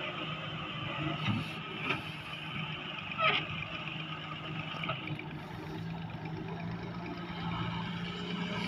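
Heavy excavator's diesel engine running steadily, with a few short knocks in the first few seconds.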